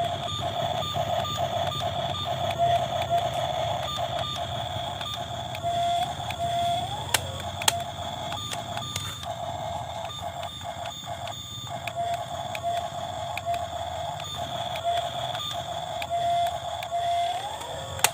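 Electric drive of an RC model excavator whining steadily, the whine briefly rising in pitch a few times, with a low rumble and scattered sharp clicks.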